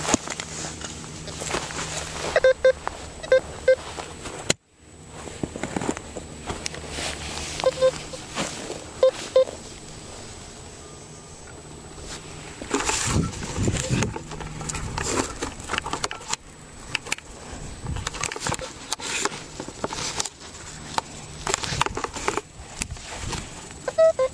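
XP Goldmaxx Power metal detector giving short beeps in small clusters as its coil is passed over the dug spot, signalling a metal target in the soil. Between the beeps a spade cuts and turns the turf with crunching, scraping clicks.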